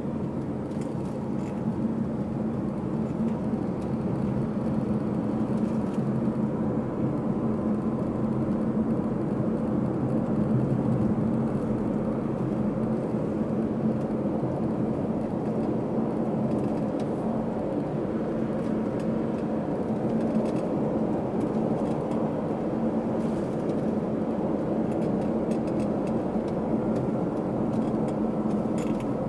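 Steady road and tyre noise with a low engine hum, heard from inside a car's cabin while it drives along an expressway.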